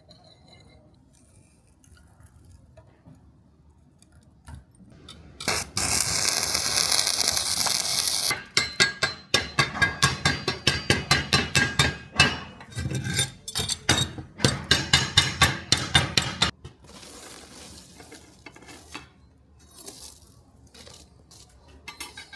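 Hammer blows on steel: a long run of rapid metallic strikes, about three a second, after a few seconds of loud hissing, with lighter clicks near the end.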